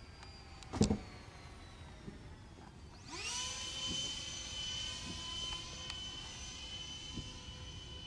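A thump about a second in; then, about three seconds in, the twin 64 mm electric ducted fans of a model F-22 jet spool up quickly into a steady high-pitched whine that holds.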